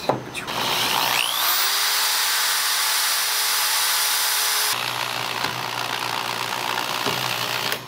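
Corded electric drill boring a small hole into a pine board. It spins up with a rising whine about a second in, then runs steadily, and its sound changes abruptly about five seconds in.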